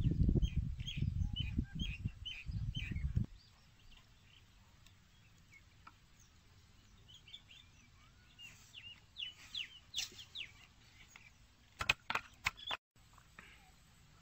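Small birds chirping in runs of short, quick calls, with a low rumble of wind on the microphone for the first three seconds and a few sharp clicks near the end.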